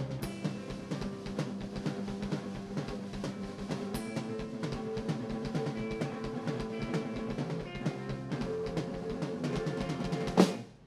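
Band playing an instrumental passage of a rock song: a drum kit keeps a busy, even beat under held chords. The music stops abruptly just before the end.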